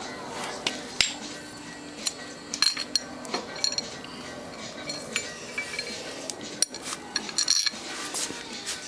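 Scattered sharp metallic clinks and light knocks as a round metal engine side cover is tapped loose with a mallet and pulled off a Kawasaki ZX6E's crankcase, over music playing in the background.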